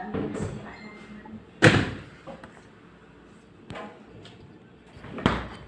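Two hard knocks like a slam, the louder about one and a half seconds in and another near the end, with a few lighter clicks and taps between.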